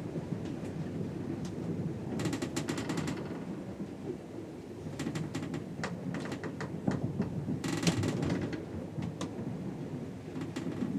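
Ship's below-deck ambience: a steady low rumble, with bursts of rapid clicking and rattling every few seconds.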